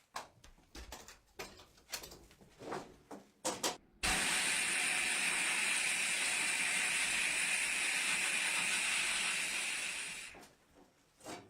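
A few seconds of small clicks and knocks, then a loud steady spray hiss lasting about six seconds that cuts off, followed by a few faint clicks.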